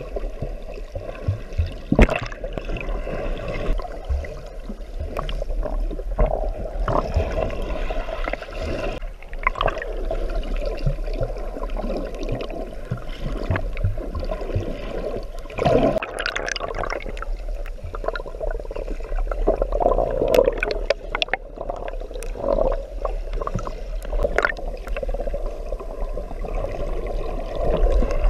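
Muffled churning and gurgling of water heard underwater as people swim close by, with bubbles and a few sharp knocks about two seconds and sixteen seconds in.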